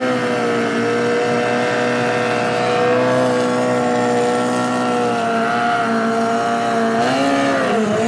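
Turbocharged Kawasaki ZX-10R inline-four drag bike doing a burnout: the engine is held at high, steady revs while the rear tyre spins and squeals. Near the end the revs dip briefly and climb again.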